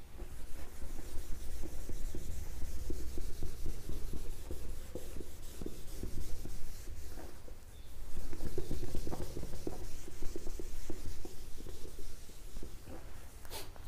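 Whiteboard being wiped clean by hand, a fast scratchy rubbing in two long spells with a short pause about halfway through. A single sharp click comes near the end.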